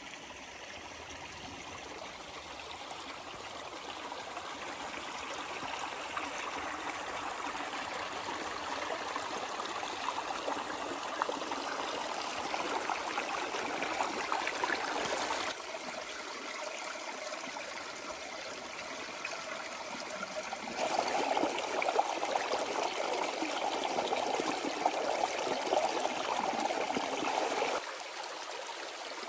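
Running water, an even rushing sound that changes abruptly in level and tone about 15 and 21 seconds in, and drops again near the end.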